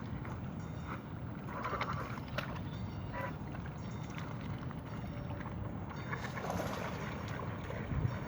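Waterfowl giving short, scattered calls, the clearest about two and three seconds in, over a steady low rumble.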